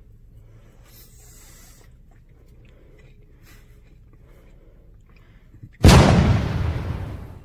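Faint chewing, then about six seconds in a sudden loud blast that fades away over about a second and a half: an edited-in sound effect timed with a "Flavor Rush!" caption.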